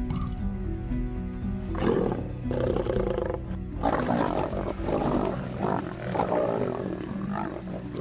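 Lions snarling and growling in a string of harsh bursts from about two seconds in, densest over the second half. It is a lioness's aggressive warning at adolescent lions over her cub. Sustained background music plays underneath.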